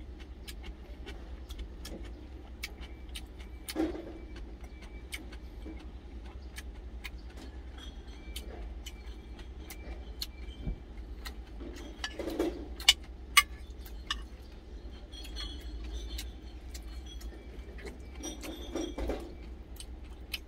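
Close-up eating sounds: chewing with many sharp mouth clicks, and a few clinks of a metal spoon against a glass food container, over a steady low hum.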